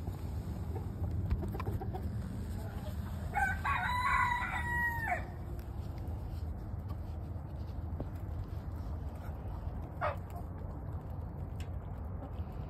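A rooster crows once, a call of about two seconds that holds and then drops at the end, starting about three and a half seconds in. A single brief chicken squawk follows near the end, over a steady low rumble.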